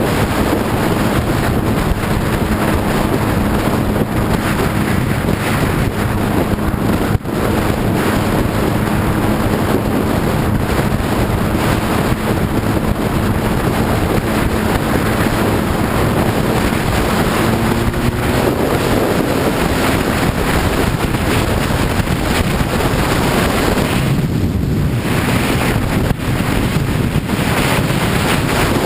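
Strong wind rush on the microphone of a sport bike riding at speed, with the engine's drone underneath. The engine note rises about two-thirds of the way through.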